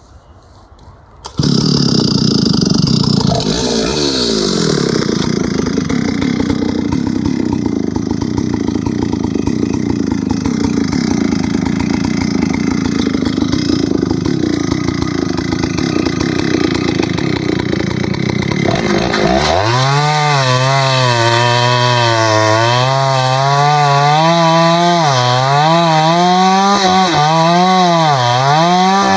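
Ported Solo 670 chainsaw with a 36-inch bar running hard, cutting into a log. It comes in abruptly about a second in. From about two-thirds of the way through, the engine note turns into a clear tone that wavers up and down.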